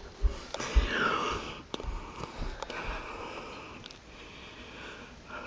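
Faint footsteps and soft knocks of someone walking across a carpeted bedroom, with a few low thumps in the first two seconds and scattered light clicks, over quiet room noise.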